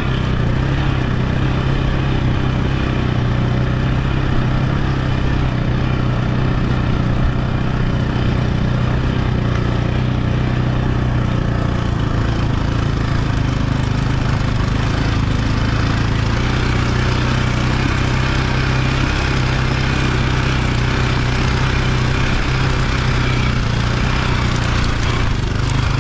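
KTM 520 dirt bike's four-stroke single-cylinder engine running steadily, its note holding nearly constant.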